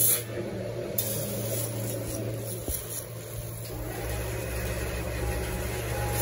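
Plastic pellets rattling and pouring from a metal scoop into a plastic bucket, in a few brief rushes at the start, about a second in, and at the end. A steady machinery hum runs underneath.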